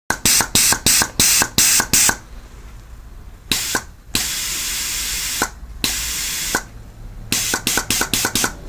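Compressed air from a 65 psi air tester hissing through a reconditioned 5L40E automatic transmission shift solenoid in bursts as power to its coil is switched on and off: a quick run of short puffs, then longer hisses of about a second, then another quick run of puffs near the end. The valve is switching the air with the coil energised, the sign that the solenoid works.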